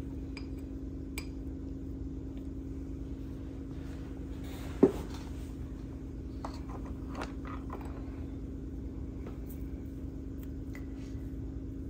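Light taps and clinks of art materials being handled on a work table, with one sharp knock about five seconds in, over a steady low electrical hum.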